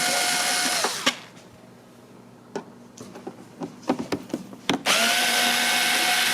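Electric drill-driver running at a steady whine, winding down about a second in, backing out screws. Light clicks and taps follow, then the driver runs again near the end.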